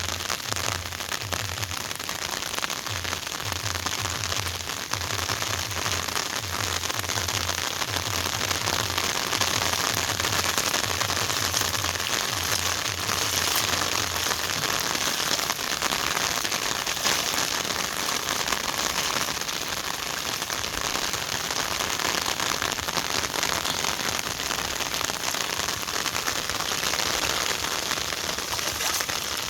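Heavy rain falling steadily, a dense even hiss. A faint low hum sounds under it in the first half and stops about halfway through.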